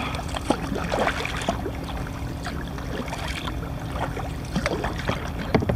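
Water splashing and lapping against a fishing kayak, with scattered small knocks and splashes at irregular moments.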